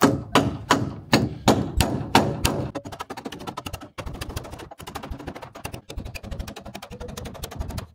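Steel hammer striking a bent rebar staple, driving it into the wooden wall beams to join them: a series of sharp metallic blows, about two to three a second, for the first few seconds. After that comes a fast run of quieter ticks and taps.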